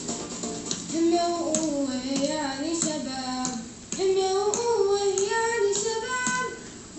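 A child singing a song melody in two phrases, with sharp taps in the accompaniment.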